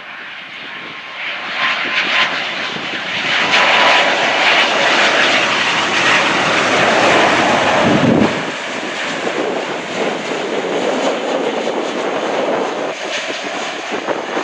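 Boeing 777 twinjet on final approach passing close by, its jet engines swelling to a loud rush about four seconds in. About eight seconds in the pitch sweeps down as it goes past, and the sound drops a little and carries on steady as it floats over the runway.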